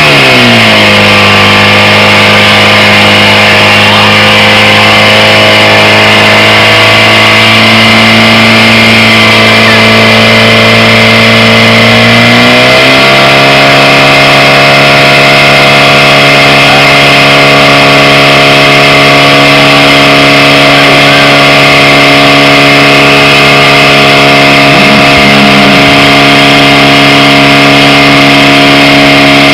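A portable fire pump's petrol engine is revved up hard, then runs steadily at high speed under load, pumping water out to the charged attack hoses. About halfway through, its pitch steps up as it is pushed to a higher speed, and it holds there.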